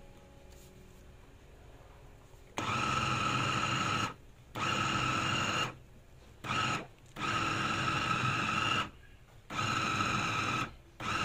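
Electric food chopper with a stainless steel motor head on a glass bowl, grinding pork into paste for meatballs. It is run in pulses: a steady high motor whine that switches on about two and a half seconds in and then stops and restarts in six bursts, each lasting from under a second to about two seconds.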